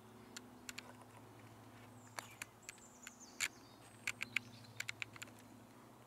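Scattered light, sharp clicks and ticks at irregular intervals over a faint steady hum, with a faint high sliding whistle-like sound near the middle.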